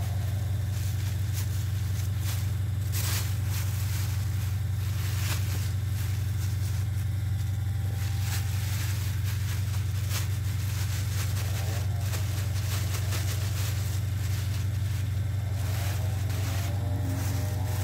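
A steady low hum throughout, with faint crinkling of thin plastic bags being untied and emptied of raw meat.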